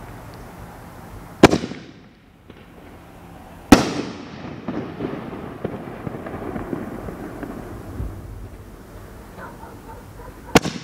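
Consumer reloadable mortar shells firing. A shell is launched from its tube with a sharp report, then bursts about two seconds later with a louder bang, followed by a crackling tail that fades over a few seconds. Near the end the next shell launches.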